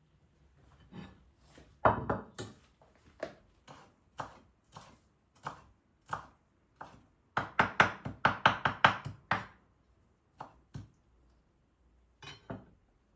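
Knife chopping food on a cutting board: spaced single chops at first, a quick run of fast chops around the middle, then a few last chops.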